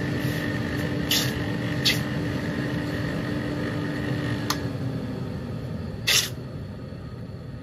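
Hot steel axe head being water-quenched to harden it: the water hisses steadily while the blade is swished in the trough with tongs, with short splashes about one and two seconds in and a louder splash about six seconds in. A steady low hum fades out a little before five seconds in.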